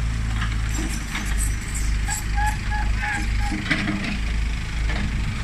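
Old backhoe loader's diesel engine running with a steady low rumble that swells and eases as it works. About two seconds in, a quick run of short, high chirps sounds over it.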